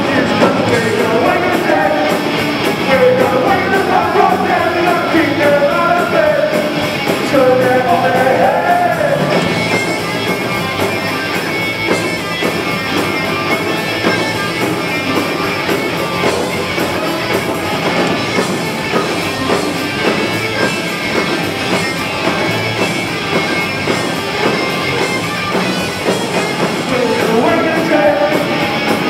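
Live punk rock band playing: electric guitars, bass and drums, with a lead singer's vocals for about the first nine seconds, then an instrumental stretch, and the vocals coming back near the end.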